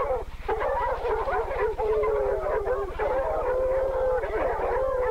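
Several dogs howling and whining together, with overlapping bending calls and one long held howl near the end, over a steady low electrical hum.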